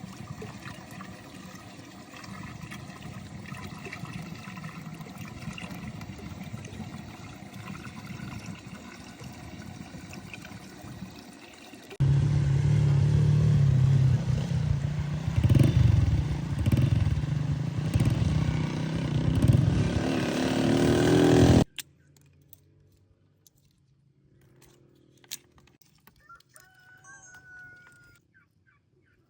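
A motor running steadily, much louder from about twelve seconds in, then cutting off abruptly; after it, faint short calls that sound like chickens clucking.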